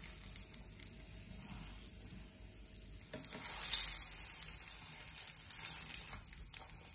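Breaded cordon bleu sizzling in hot oil in a non-stick frying pan as it is turned with a spatula and a spoon, the sizzle growing louder about three seconds in, with a few light utensil clicks.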